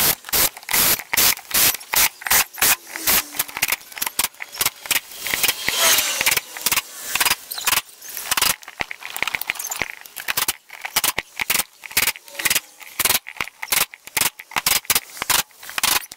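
Cordless power driver running in many short bursts with sharp clicks and rattles, snugging down the crankcase screws of a PW80 engine a little at a time.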